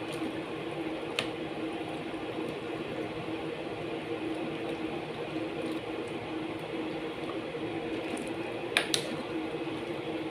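A ladle stirring vegetables through broth in an aluminium pot, with a few sharp clinks of the ladle on the pot: one about a second in and two close together near the end, the loudest sounds. A steady hum runs underneath.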